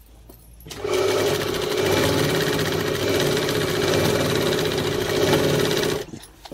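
Sewing machine running at a steady speed, stitching a seam through layered dress fabric. It starts under a second in and stops abruptly about half a second before the end.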